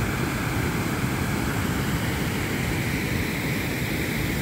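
Steady rushing of a mountain river's water pouring and churning over a low weir.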